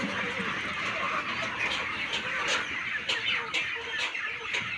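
Kampung chickens (Indonesian native chickens) clucking and squawking, a rapid run of short, sharp calls.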